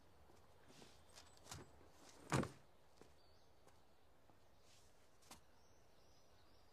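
Near silence with a few faint clicks and one brief, louder thump about two and a half seconds in.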